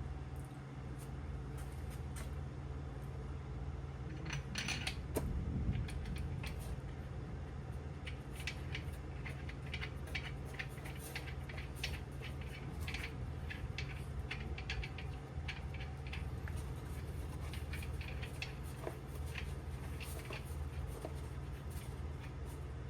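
Scattered light metallic clicks and taps from handling main bearing parts and hand tools, with a louder clatter about five seconds in, over a steady low hum.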